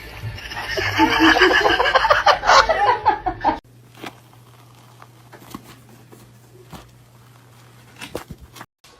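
Loud, pitched vocal cries for about three and a half seconds, then they stop abruptly. After that comes a much quieter stretch with a steady low hum and scattered light taps.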